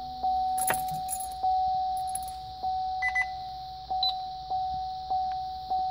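A Chevrolet Camaro's warning chime dinging over and over at one pitch, each ding fading before the next, about every half second to a second. A few light clicks and jingles come between the dings.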